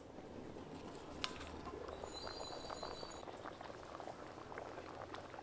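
Coconut-milk curry bubbling at a boil in a pot: a steady hiss filled with many small pops. There is one sharp click about a second in.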